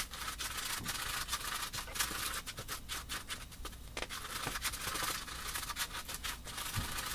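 A thin metal utensil stirring and scraping fine powdered rocket-fuel mix (potassium nitrate, sugar and sulfur) around a paper cup: quick, irregular scratching and rubbing. The stirring breaks up clumps in the powder.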